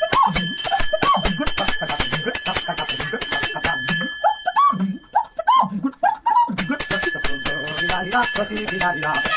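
Fast, rhythmic bell-like ringing with a voice over it. The ringing stops for about two and a half seconds in the middle, leaving the voice alone, then starts again.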